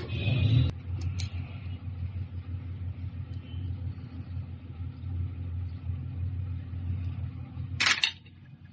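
Diesel engine running steadily with a low, even hum. Just before the end a short, sharp noise, after which the sound is quieter.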